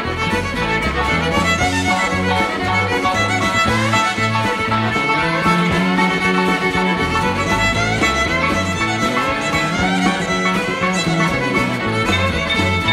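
Live rock band instrumental: a violin plays the lead line over electric guitar, bass guitar and drums.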